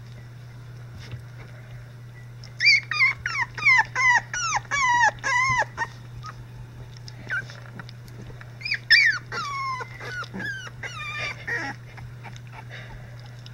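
Three-week-old Icelandic Sheepdog puppies whining and yelping during rough play. The cries are short and high-pitched, each sliding down in pitch: a quick run of about nine starting a few seconds in, and a second run a little past the middle.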